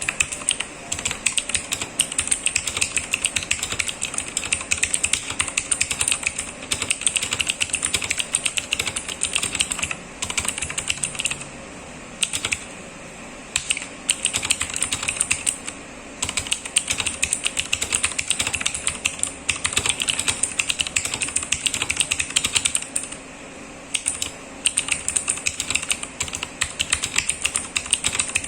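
Fast, continuous typing on a mechanical keyboard with Cherry MX switches, a rapid patter of key clicks broken by a few short pauses.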